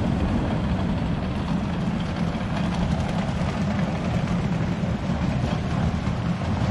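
Rain falling on an umbrella overhead, a steady hiss with many small drop ticks, over a constant low rumble of city traffic.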